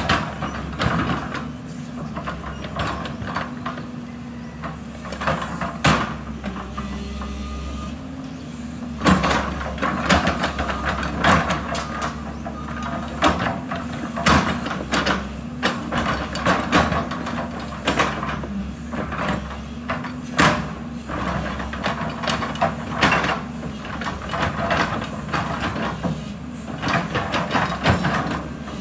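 JCB tracked excavator's diesel engine running, its pitch dipping and recovering over and over as the hydraulics take load. Irregular scrapes and knocks of the steel bucket digging earth and stones come over it, busiest from about a third of the way in.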